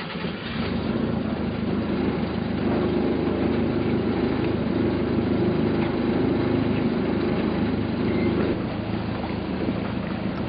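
Small river boat's engine running steadily. It grows louder about a second in and eases off slightly near the end.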